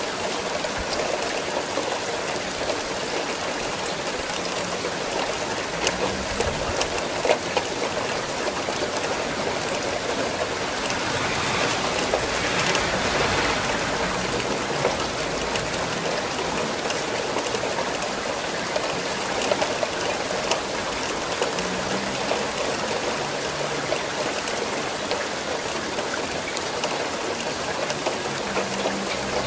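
Steady rain falling, with many separate drops ticking through it; it swells a little about twelve seconds in.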